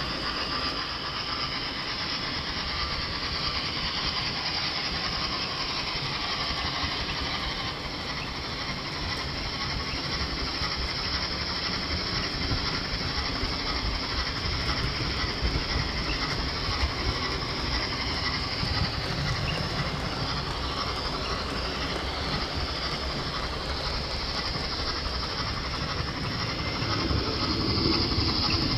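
Model train running on the layout's track, heard from a camera riding on board: a steady rattle and clicking of the wheels over the rails and points.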